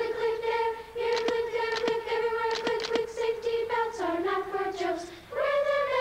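Children's chorus singing long held notes. The pitch drops in the second half, and a new, higher note starts shortly before the end. Sharp clicks sound at intervals through the singing.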